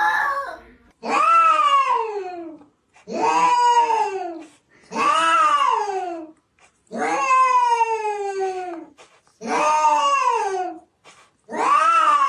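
A cat yowling over and over: about six long, drawn-out calls, each rising and then falling in pitch, one every two seconds or so.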